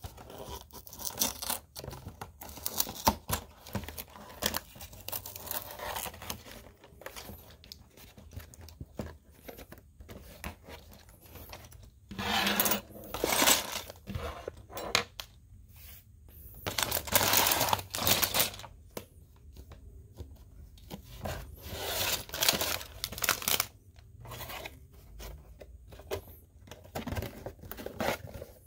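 Lego set packaging being torn open and handled. Several longer bursts of tearing and crinkling are broken up by small clicks and rattles.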